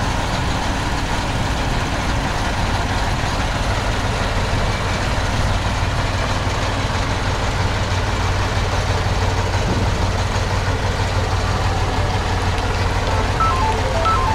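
Heavy diesel engines of a Kirovets K-739 tractor and a MAZ truck crane running steadily with a low drone, as the tractor takes up the slack in the tow cable before pulling the stuck crane free.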